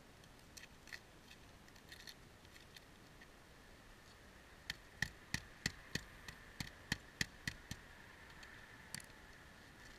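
Claw hammer driving a nail through a metal roof clip into asphalt shingles: a run of about a dozen sharp strikes, roughly three a second, starting about halfway through, after a few faint ticks.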